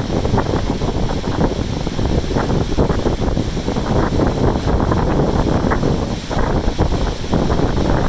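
Strong wind buffeting the microphone in loud, irregular gusts.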